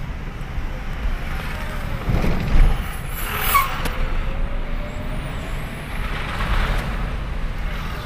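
Road traffic in a slow jam: vehicle engines running with a steady low rumble, a brief surge a couple of seconds in, and a short hiss about three and a half seconds in.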